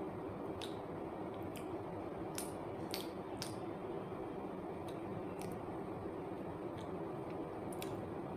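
Chocolate sauce squeezed from a squeeze bottle onto a peeled banana: a few short squelching clicks, clustered about two and a half to three and a half seconds in, over a steady background hiss.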